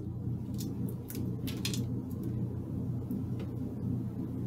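A shaken cocktail being strained from a metal shaker tin through a regular strainer and a fine double strainer into a coupe glass: a quiet pour with a few faint, scattered ticks of ice and metal against the strainers.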